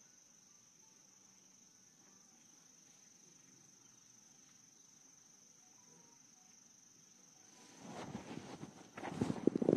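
Crickets chirping in a faint, steady high trill. Near the end comes a loud rustling and shuffling of clothing and bodies as the prayer congregation rises from prostration.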